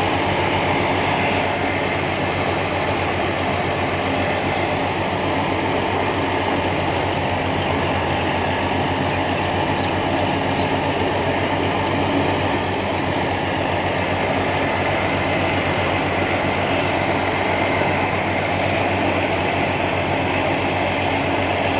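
A Massey Ferguson tractor's diesel engine working steadily under load, driving a wheat thresher as wheat sheaves are fed into it. Loud, even machine noise with a fast, regular pulse throughout.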